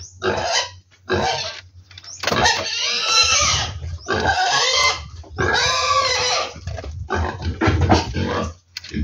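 A pig squealing: two long, loud squeals with shorter grunting calls before and after.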